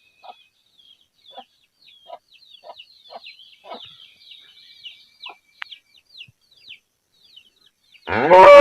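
Faint high chirps of small birds and soft low clucks, like village chickens, between moos; near the end a cow begins a loud moo.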